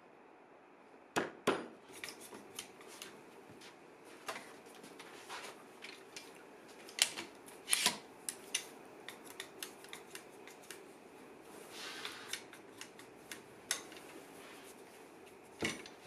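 Irregular clicks and knocks of one-handed quick-release bar clamps being slid, squeezed and tightened on a walnut frame, with wooden parts knocking against the clamps and bench. A few knocks are much sharper than the rest.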